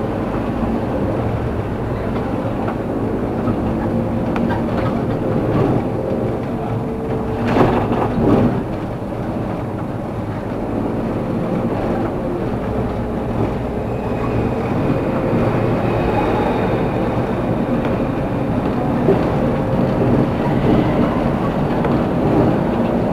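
Steady running noise of a vehicle in motion, a continuous rumble with a steady hum over it, broken by a couple of louder knocks about seven and a half to eight and a half seconds in.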